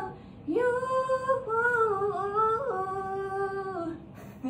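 A young woman singing unaccompanied: one slow phrase of long held notes that starts about half a second in and steps down in pitch before ending near the end.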